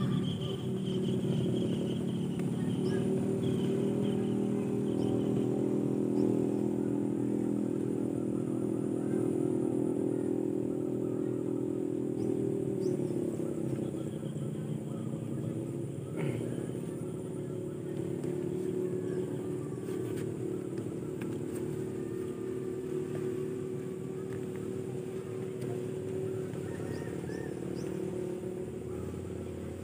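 A small engine running steadily nearby, its pitch dipping and then picking up again about halfway through.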